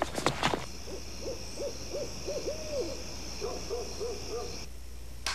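Owl hooting in two quick runs of short hoots, over a steady high-pitched chorus of night insects that cuts off near the end.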